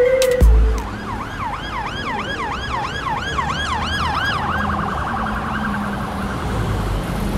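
Emergency vehicle siren in a yelp pattern, rising and falling about two to three times a second, then switching a little past halfway to a much faster warble. A deep bass hit sounds right at the start.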